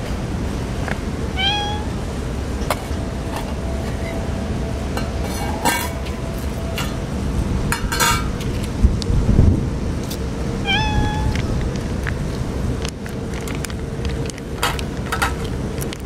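Stray cats meowing, with two short meows, one about a second and a half in and one near 11 seconds, over a steady low rumble of wind on the microphone. Scattered sharp clicks and rustles come through as they feed.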